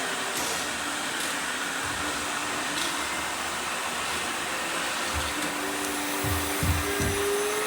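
Robot vacuum cleaners running with a steady motor whir, with a few low thumps in the last couple of seconds.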